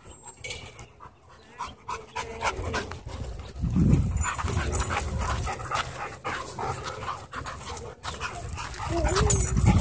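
Dogs panting and scuffling close by, with a short whine near the end. From about four seconds in, a heavy low rumble on the microphone is the loudest sound.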